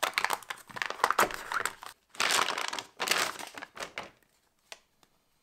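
Thin plastic vacuum bag crinkling as it is torn open and pulled off a spool of PLA filament, in two rustling stretches, with a faint click near the end.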